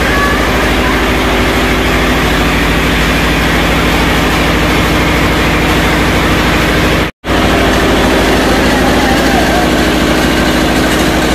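Single-cylinder stationary diesel engine running steadily at constant speed, belt-driving a spice-grinding mill. The sound drops out abruptly for a moment about seven seconds in, then carries on unchanged.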